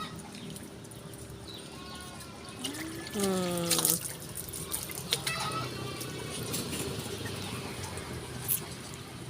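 Water sloshing and splashing as a monkey bathes. About three seconds in comes a loud drawn-out call that falls in pitch, with a few short clicks.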